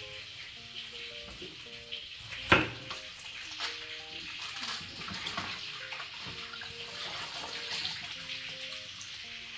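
Kitchen tap running into a plastic basin as lettuce is rinsed under it, a steady splashing hiss. A single sharp knock about two and a half seconds in. Soft background music with short held notes plays underneath.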